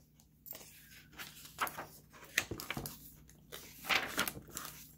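Paper pages of a hardcover picture book being handled and turned: a string of short rustles and flicks, the loudest about four seconds in.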